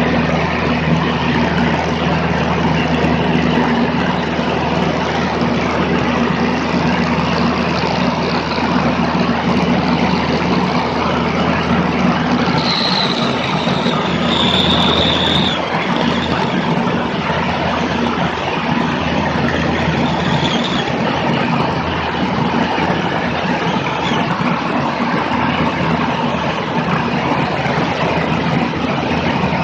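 Single-engine light plane's piston engine and propeller droning steadily in flight, under heavy wind rush on a camera mounted outside under the wing. A brief high whistle comes in about halfway through.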